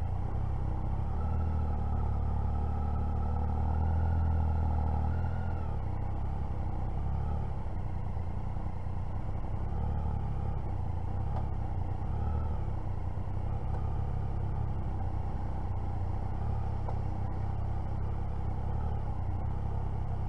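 Motorcycle engine running steadily at low speed in slow traffic, a little louder for a couple of seconds near the start.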